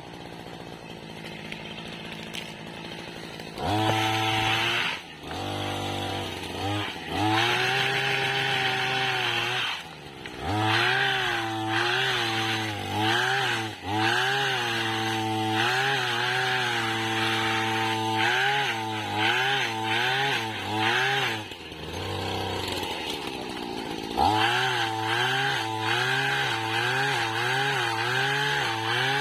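Small two-stroke engine of a motorized oil-palm pole saw (mesin egrek) idling, then revving up about four seconds in. It runs at high speed with its pitch wavering up and down as it cuts palm fronds. It drops back several times, longest about three quarters of the way through, before revving again.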